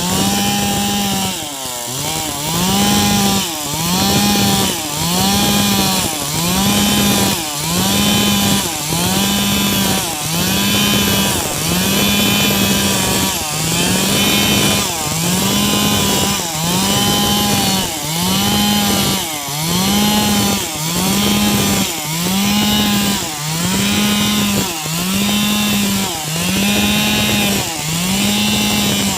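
Two-stroke chainsaw cutting wood, its engine speed rising and falling in a steady rhythm about three times every four seconds.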